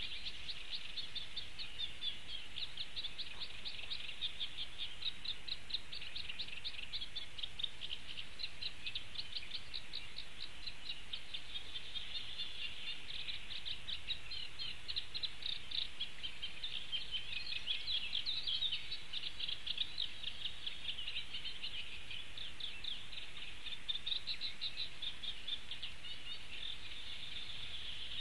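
Bird calling in a continuous, rapid chattering trill of high notes that swells and eases in strength without a break.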